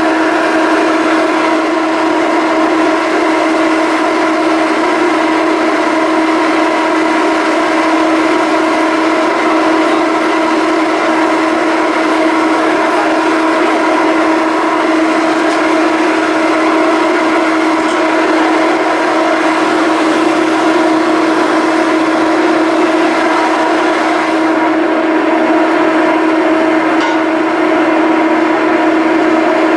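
Steady, loud machinery drone from a Salish-class ferry, one unchanging pitch with a stack of overtones.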